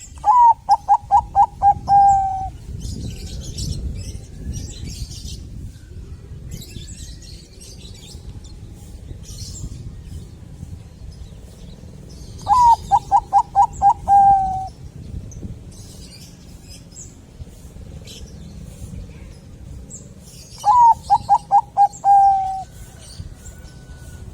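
Zebra dove (perkutut, Bangkok type) singing three times. Each song is a quick run of about seven short cooing notes that ends in one longer drawn-out note. Faint chirps of small birds sound in the background.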